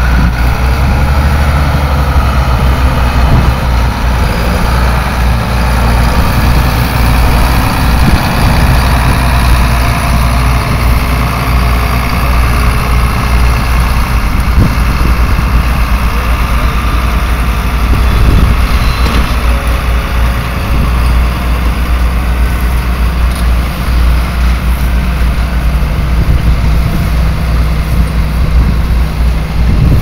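John Deere tractor's diesel engine running steadily close by as the tractor works with a mounted reversible plough.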